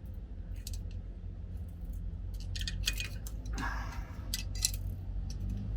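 Light metallic clicks and clinks of small parts and hand tools being handled, with a short scrape midway. A steady low hum runs underneath.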